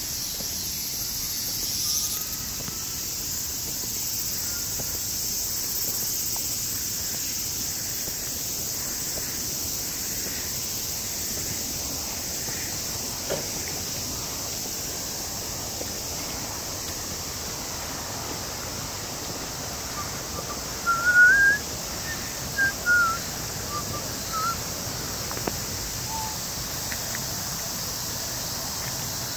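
Outdoor ambience with a steady high hiss. About two-thirds of the way through, a bird gives a handful of short whistled chirps that rise and fall, the loudest sounds here.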